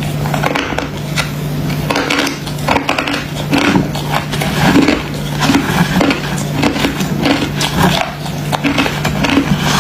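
Close-up chewing of crunchy freezer frost ice: repeated irregular crunches, one or two a second, over a steady low hum.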